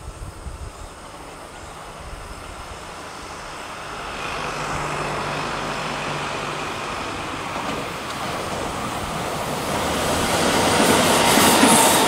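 JR West 521 series electric train approaching and passing close by, its wheels rumbling on the rails; the noise swells steadily and is loudest near the end.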